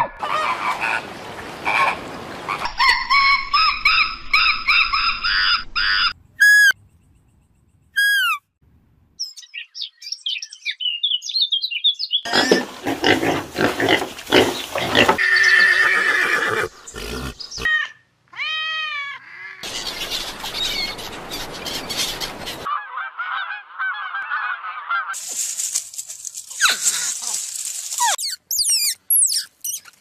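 A string of short, unrelated animal-call recordings cut abruptly one into the next, among them several series of high, arched chirping calls.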